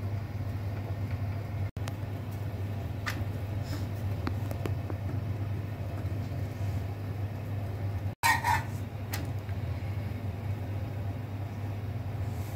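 Steady low hum from a gas stove under a hot iron tawa with a roti cooking on it, with a few faint ticks and a brief louder scrape about eight seconds in.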